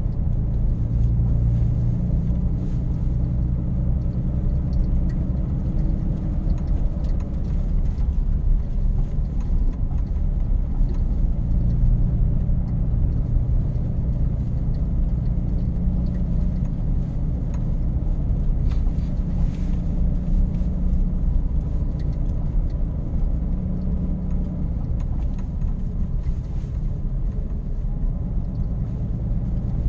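Truck engine running, a steady low rumble.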